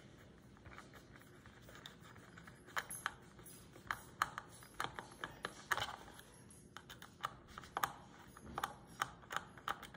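Light, irregular clicks and taps of small plastic parts being handled as a small screwdriver works at the battery compartment of a plastic toy spin-art machine. The clicks grow more frequent from about three seconds in.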